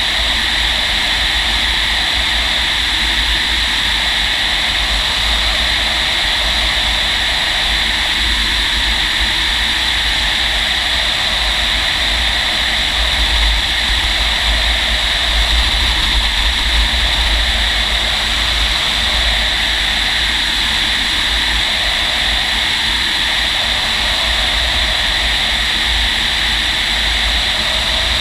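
Steady rush of air past a glider in flight under aerotow, heard inside the cockpit: an even, unbroken hiss over a low rumble of buffeting.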